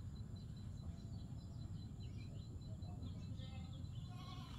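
Faint outdoor ambience: small birds chirping here and there over a low steady rumble, with a brief pitched call near the end.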